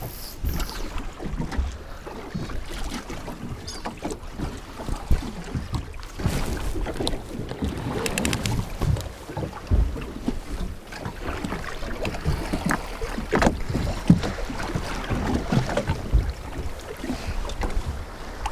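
Wind buffeting the microphone and a choppy sea slapping against the hull of a small anchored boat, with irregular knocks and clicks.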